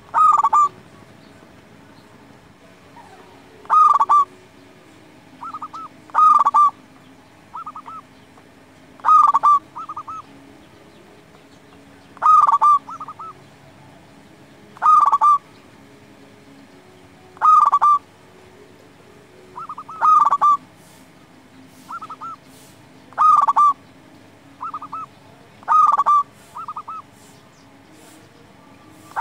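Zebra dove (local perkutut) singing its cooing song over and over: a loud phrase of quick notes about every two and a half to three seconds, with softer short coos between the phrases.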